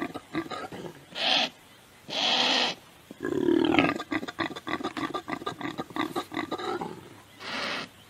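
A large animal calling: three long, rough calls, then a fast run of short grunts, and one more breathy call near the end.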